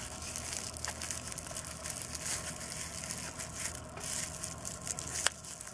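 Packaging being handled: light rustling and crinkling of wrapping around a small boxed item, with scattered small clicks and one sharper click near the end.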